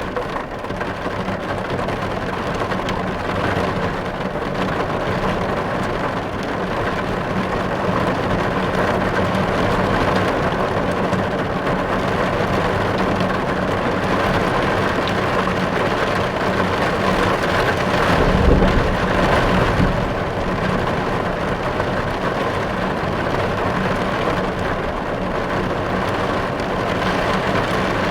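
Heavy rain pelting the car's glass, heard from inside the car as a steady, dense patter. A low rumble swells briefly about two-thirds of the way through.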